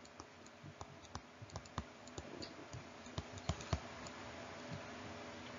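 Faint, irregular clicks and taps of a stylus on a tablet screen as numbers are handwritten, with a few louder taps a little past the middle.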